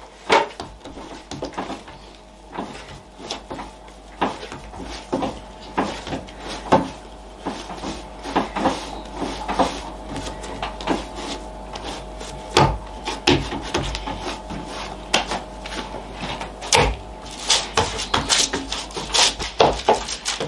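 Hands working and patting a ball of rye-flour dough, then pressing it flat on paper on a wooden table: irregular soft knocks, pats and rubbing, with a faint steady hum from about halfway in.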